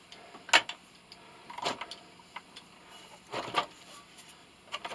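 A few scattered clinks and knocks of metal scrap parts being handled and sorted, with one sharp click about half a second in and a cluster of knocks past the three-second mark.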